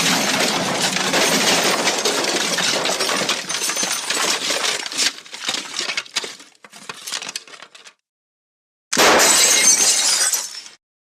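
Glass shattering in a loud crash, with broken pieces tinkling and settling for a few seconds before dying away; after a short silence a second, shorter glass crash follows near the end.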